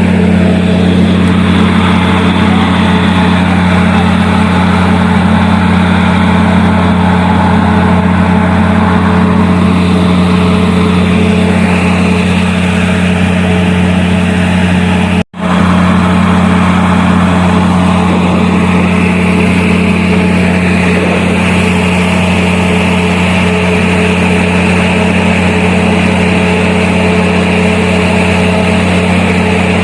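Heavy engine running with a steady low drone, cutting out for an instant about halfway through.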